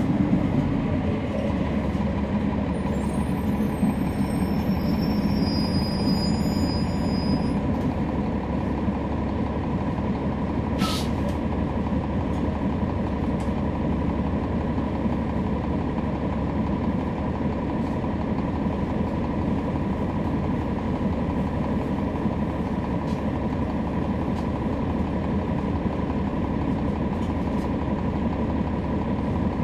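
Rear-cabin sound of a NABI 40-SFW transit bus: its Cummins ISL9 diesel engine and ZF Ecolife six-speed automatic transmission running steadily, a low drone with a thin steady whine over it. A single faint click about eleven seconds in.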